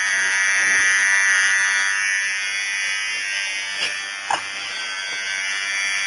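Electric hair clippers running with a steady buzz as they shave a head close.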